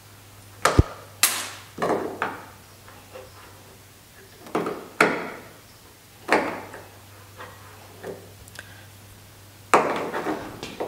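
Welded-on stud-welder pins being broken off a 1966 Mustang's sheet-steel roof panel after dent pulling: a series of sharp metallic snaps and clicks, about ten, spaced irregularly, with a faint steady hum underneath.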